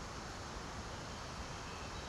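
Rushing water: a steady, even rush with no separate events.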